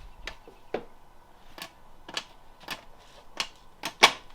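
Series of sharp metallic clicks from hand-tool work on a transmission, irregular at about two a second, the loudest near the end.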